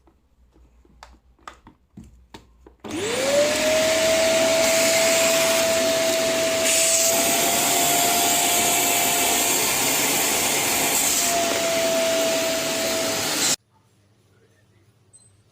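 PowerPac bagless cyclone vacuum cleaner, a few light clicks of handling, then the vacuum switched on: its motor whine rises quickly to a steady high pitch over a loud rush of airflow, runs for about ten seconds, and stops abruptly.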